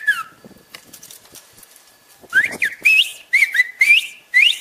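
Amazigh (Berber) whistled speech: a human whistle sliding up and down around 2 kHz, carrying the spoken phrase "Happy birthday, sir". One whistled phrase ends just after the start, and after a short pause another string of rising and falling whistled glides begins about halfway in.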